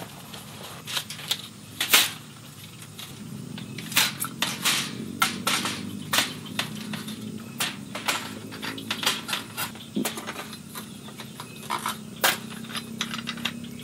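Metal poles and mesh panels of a folding camping rack clicking and clattering as they are pulled from a bag and fitted together: irregular sharp clicks and knocks.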